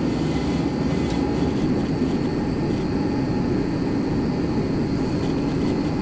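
Diesel-fired torpedo heater running with a steady, even noise.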